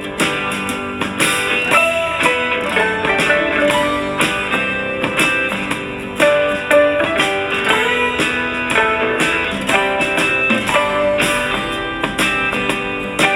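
Country-folk song with strummed and plucked guitar, played through a compact JBL Go 3-type portable Bluetooth speaker.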